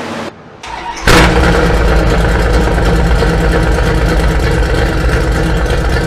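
Mopar 408 stroker small-block V8 starting up about a second in with a loud first burst, then running steadily with a deep, fast-pulsing exhaust note. This is its first start in the truck after exhaust and vacuum leak repairs.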